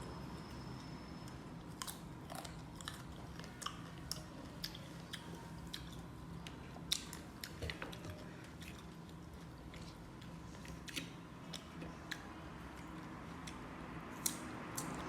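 Close-up chewing and crunching of sour fruit, with irregular sharp crunchy clicks as it is bitten and chewed.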